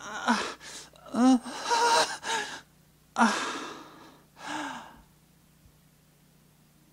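A person's voice gasping and sighing breathily, four times over about five seconds, some of the breaths with a sliding pitch.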